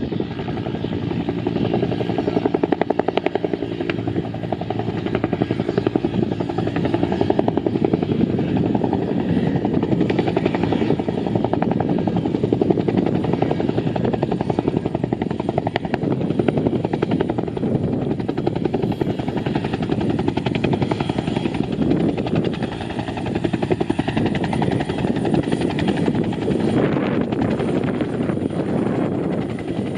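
Helicopter rotor blades beating steadily up close, with the engine running under them.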